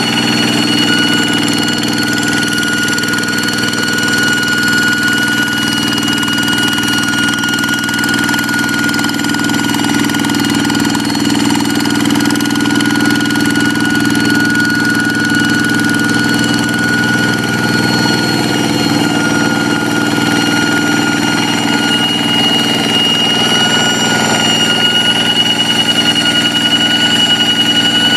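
Kubota single-cylinder diesel engine of a hand tractor running steadily, its diesel clatter carrying a steady high-pitched whine ("ngiung ngiung").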